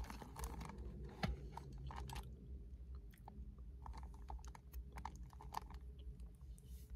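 A person chewing a mouthful of riced cauliflower, with many small irregular crunchy clicks.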